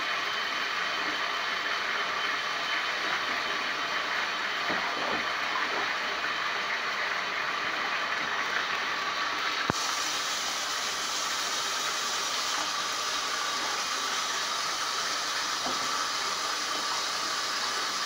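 Bath tap running steadily into a filling tub, an even rushing hiss of water. A click about ten seconds in, after which the hiss turns brighter.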